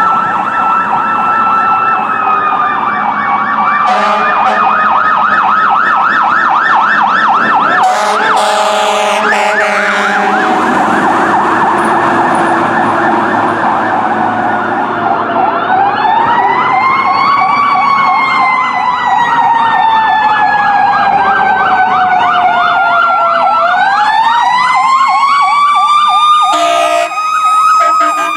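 Fire truck sirens on an emergency response. A fast electronic yelp runs throughout, while a second siren winds up twice, past halfway and again near the end, each time slowly winding down. Air horn blasts come around a third of the way in and again near the end.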